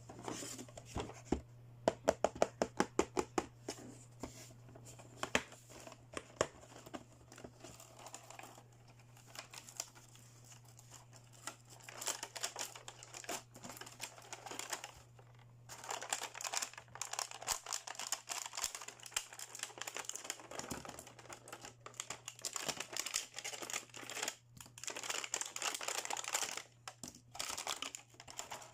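Plastic toy packaging being crinkled and torn open by hand, with a quick run of sharp clicks about two seconds in and long stretches of dense crinkling later on. A low steady hum runs underneath.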